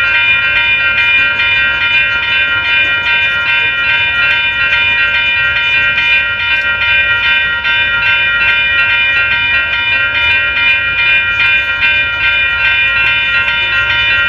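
Railroad grade-crossing bell ringing steadily, about two to three strikes a second, its ringing tones blending into one sustained chime, over the low rumble of a passing freight train.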